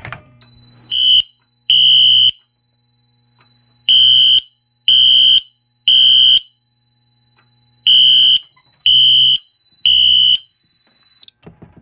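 Wheelock NS horn-strobe sounding its code-3 temporal pattern: loud half-second horn blasts in groups of three with a pause between groups, set off by a sharp click as the fire-alarm pull station is pulled at the start. A faint steady high-pitched whine runs under the blasts and stops shortly before the end.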